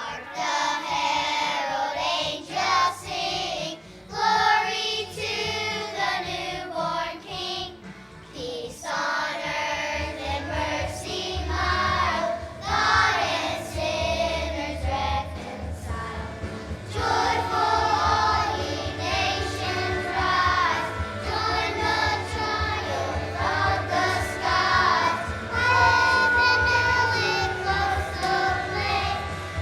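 Children's choir singing with musical accompaniment; a deep bass part joins about a third of the way through.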